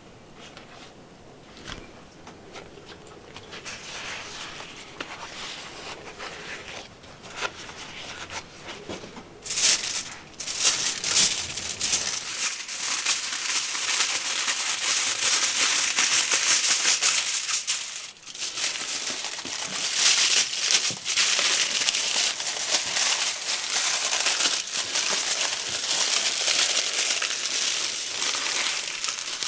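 Aluminium foil crinkling loudly as it is pulled off the roll, cut and folded tightly around a flatbread-wrapped fish. Softer paper-like rustling comes before the foil starts, about a third of the way in.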